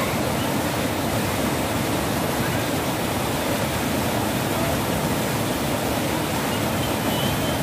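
Muddy river in spate rushing over boulders through rapids: a steady, loud rush of whitewater.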